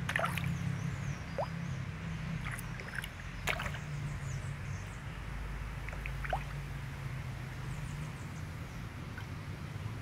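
Fish feeding at the water's surface on floating bread: a few short splashes and plops, the clearest about three and a half seconds in, over a steady low rumble.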